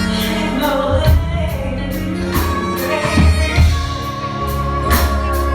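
Live R&B band playing with singing over it: a steady beat of cymbal strokes over a bass line, with long held vocal notes. The music cuts off suddenly at the end.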